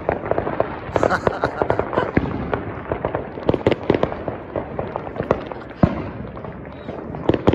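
Fireworks going off: a dense crackle of many quick pops, with a louder bang about six seconds in and another near the end.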